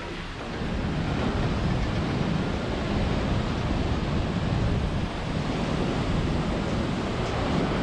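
Kvernufoss waterfall plunging into its pool: a loud, steady rush of falling water, with wind buffeting the microphone. It grows louder about half a second in.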